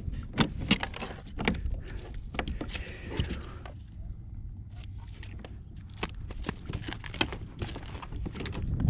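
Scattered clicks and knocks, irregular and sharp, over a steady low rumble of wind on the microphone.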